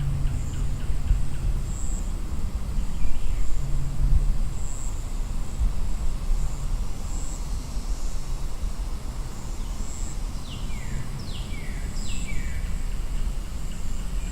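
Daytime wildlife ambience: a steady high-pitched insect drone that swells every second or two, and a bird giving a few quick falling calls about ten to twelve seconds in, over a low rumble of distant vehicles.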